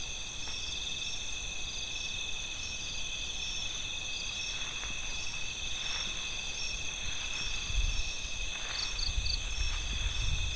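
Chorus of crickets and other night insects: several steady, overlapping high-pitched trills. A low, uneven rumble joins in for the last couple of seconds.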